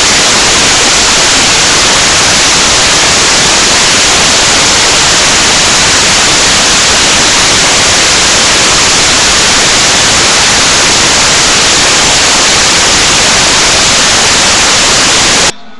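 Loud, steady static hiss, even like white noise, that cuts off abruptly near the end.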